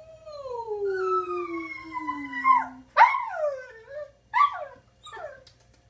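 A corgi howling along with a woman who is howling to it: one long howl that falls slowly in pitch, then three short howls that rise and fall.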